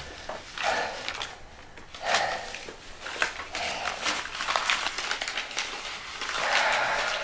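A man's heavy, breathy sighs, about four of them, the last one longest and loudest. Between them paper banknotes crinkle and rustle in his hands.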